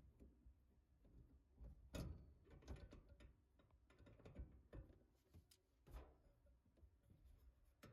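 Faint, irregular clicks and knocks, a few seconds apart, against near silence.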